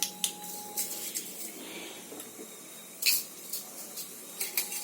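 Mustard seeds and urad dal frying in hot sesame oil in a kadai: a faint sizzle with scattered sharp pops as the seeds splutter.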